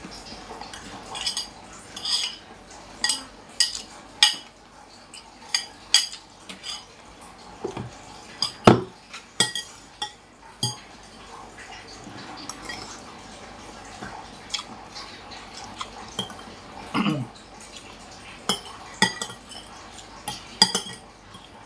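Metal spoon and fork clinking and scraping against a ceramic soup bowl while eating meatball soup: many short irregular clinks, the loudest about nine seconds in.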